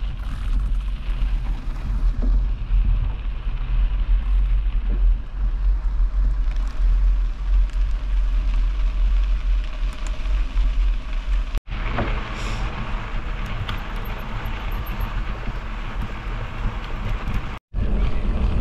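Wind buffeting the microphone with a steady low rumble of a bicycle ride. The sound cuts out for an instant twice, about two-thirds of the way through and near the end.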